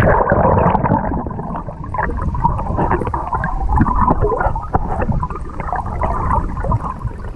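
Loud, muffled rushing and gurgling of water, cutting in abruptly.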